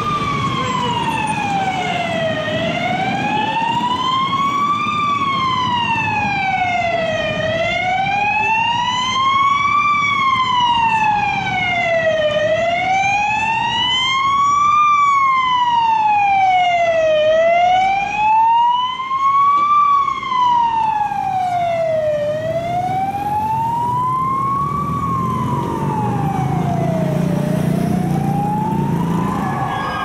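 Fire engine's siren wailing, sweeping slowly up and down with each rise and fall taking about five seconds, over a bed of traffic noise. An engine's low rumble grows louder near the end.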